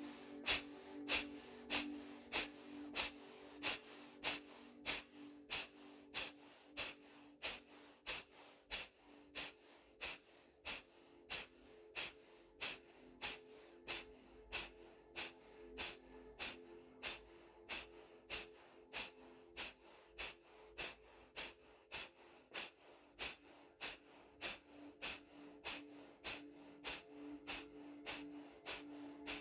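Kapalabhati breathing at fast pace: short, sharp, forceful exhalations through the nose, evenly spaced at about two a second, over soft background music with held notes.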